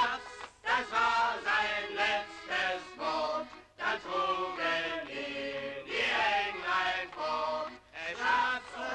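A group of people singing a song together in chorus, on an old film soundtrack.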